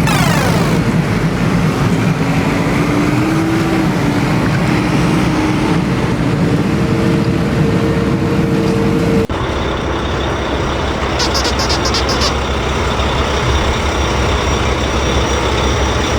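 Heavy vehicle engine running steadily. About nine seconds in it cuts abruptly to another engine running with a high steady whine.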